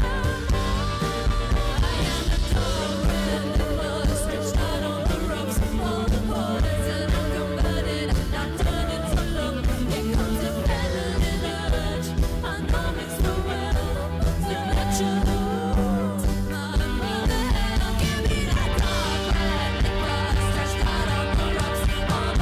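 A rock band playing a song live, with a woman singing long, wavering lines over drums and guitars.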